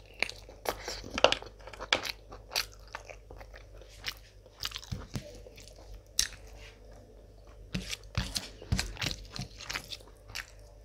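Close-miked chewing of a mouthful of mutton tahari rice and mutton eaten by hand, with many sharp, irregular crunches.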